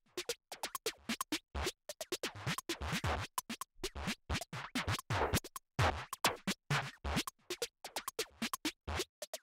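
Background electronic music with a fast, choppy beat.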